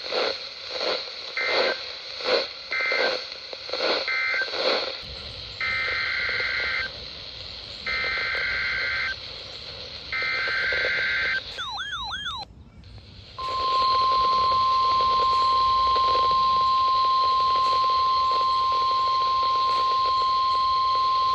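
Emergency Alert System tones on NOAA Weather Radio. Three short two-pitch SAME data bursts mark the end of one warning, three longer bursts form the header of the next, and after a brief warbling glide a steady single-pitch warning alarm tone begins about 13 seconds in.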